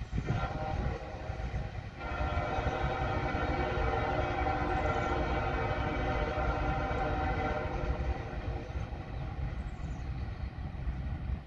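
Freight train locomotive's air horn sounding one long steady blast of about six seconds, starting about two seconds in, over the continuous low rumble of the train.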